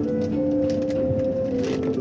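Background music of long held notes that step slowly from one pitch to another.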